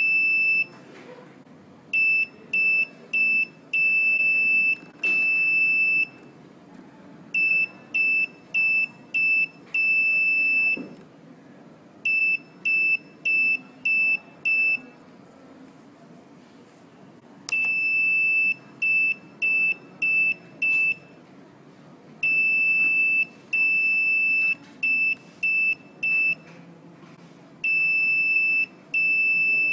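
Electronic buzzer on a Nuvoton NUC140 learning board beeping out Morse code for the digits: groups of short and long high-pitched beeps, each group one character, with pauses of a second or two between groups.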